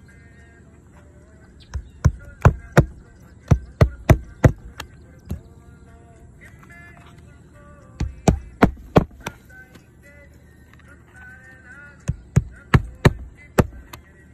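Hammer driving roofing nails into asphalt shingles: three quick runs of sharp blows, roughly five to nine strikes each, with pauses of a few seconds between.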